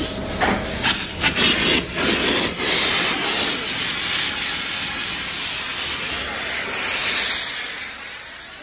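Compressed air blasting out of the open end of a pump-line hose as a sponge cleaning ball is driven through the line: a loud rushing hiss with a few sharp spurts in the first two seconds, fading near the end.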